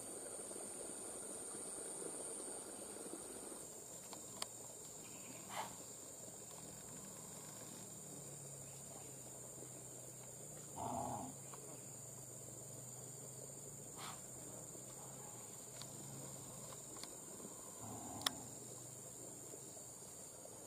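Faint, steady high-pitched drone of forest insects, with a few sharp clicks and a short call about halfway through.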